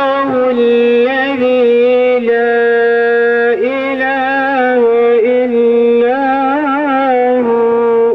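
A man's unaccompanied voice chanting a devotional melody into a microphone, holding long notes and ornamenting them with wavering turns, with a few short breaths between phrases.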